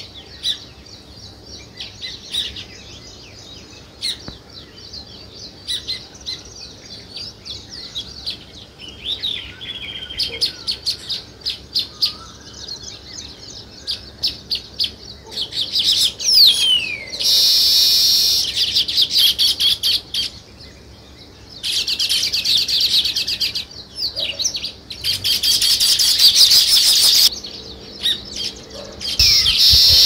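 Male baya weaver chirping and chattering at its hanging nest: many quick high chirps and sweeping notes at first, then several loud, drawn-out buzzy wheezing stretches of two to three seconds each in the second half.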